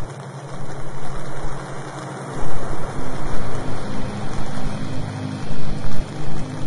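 Subliminal audio bed: a steady rushing, water-like noise that swells and ebbs over a low sustained drone of held tones, which changes notes twice.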